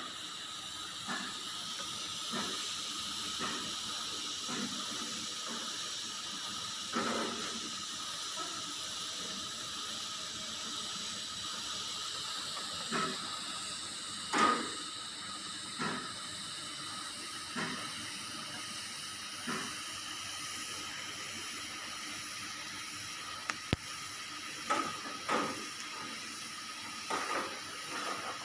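TIG welding arc on a thin 316 stainless steel pipe with argon shielding gas: a steady hiss with a faint high hum, broken by occasional short ticks, one louder about halfway through and several close together near the end.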